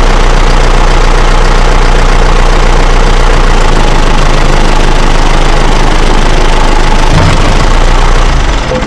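John Deere 6110 tractor's diesel engine idling steadily and loudly, running on its freshly installed battery; it dies away near the end.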